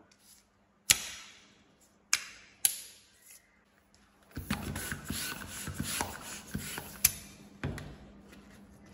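A long latex modelling balloon being handled and blown up with a hand pump: three sharp snaps in the first few seconds, then about three seconds of quick pump strokes pushing air into the balloon.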